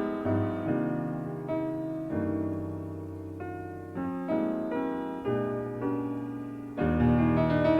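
Jazz piano playing a slow run of chords, each struck and left ringing as it fades, with deep low notes beneath, heard from a cassette recording of an FM radio broadcast.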